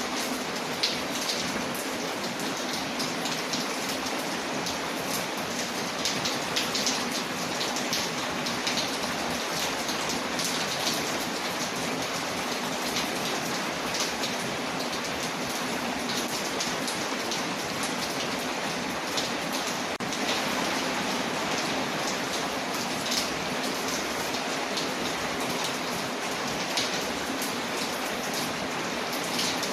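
Steady rain on a window, layered with the crackling of a wood fire, which shows as frequent small sharp ticks over the even hiss of the rain.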